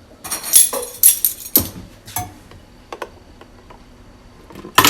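Small kitchen utensils being handled: light clattering for about a second and a half, then a few separate sharp clicks and knocks, the loudest just before the end.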